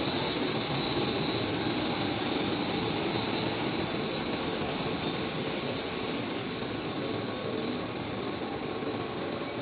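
PE stretch film extrusion machine running: a steady, dense machine noise with a thin high whine that fades out over the first few seconds.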